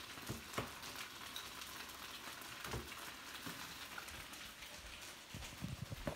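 Potstickers frying in oil in a pan: a steady sizzling hiss with a few light clicks.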